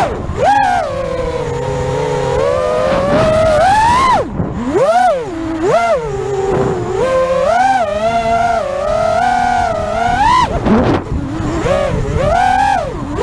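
FPV quadcopter's electric motors and propellers whining, the pitch sweeping up and down over and over with the throttle.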